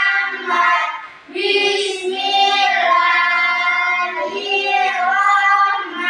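A class of children chanting the shalawat prayer in unison in a sing-song melody, with a short breath pause about a second in.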